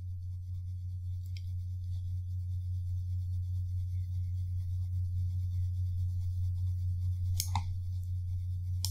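Steady low hum with three faint clicks from a computer mouse, one about a second and a half in and two near the end.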